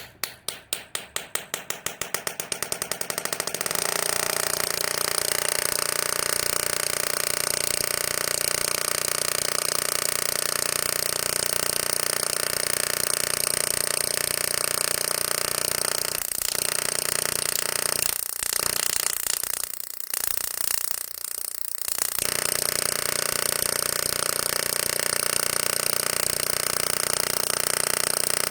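High-voltage electric arc: separate spark snaps quicken over the first few seconds into a continuous buzzing arc. The arc cuts out briefly a few times past the middle.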